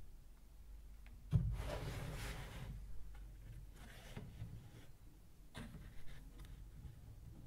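A hand handling an old cardboard box and papers: rubbing and rustling that starts suddenly about a second in and lasts a second or so, then lighter rustles twice more.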